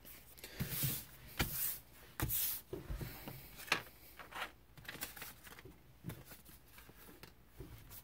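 Scattered light taps, clicks and rustles of hands handling small paper packaging cards and a phone on a desk. The louder knocks come in the first four seconds, and fainter rustling follows.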